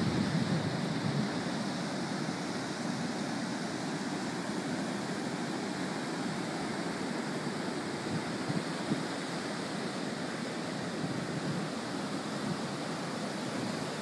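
Ocean surf breaking and washing up the sand, a steady rush of water noise, slightly louder at the start.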